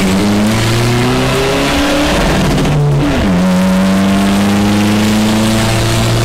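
Racing pickup truck's engine heard from inside the cab, accelerating. The pitch climbs, drops at a gear change about three seconds in, then climbs slowly again.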